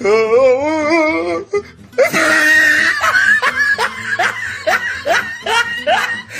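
Laughter over music: a quavering, wobbling voice for about a second and a half, then a person laughing in repeated bursts over a steady backing track.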